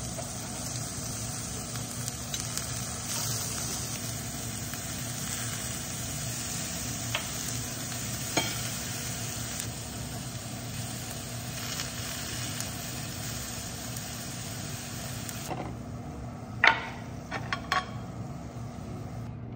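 Steak sizzling on hot cast iron, a steady hiss that drops away about three-quarters through. A few sharp clacks follow near the end.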